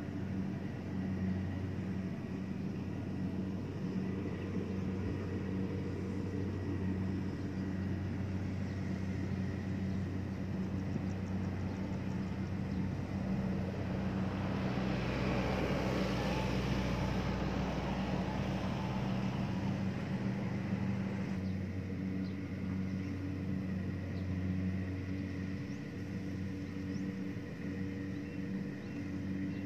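Engine of a rice harvesting machine running steadily, an even low hum. About halfway through, a gust of wind buffets the microphone for several seconds.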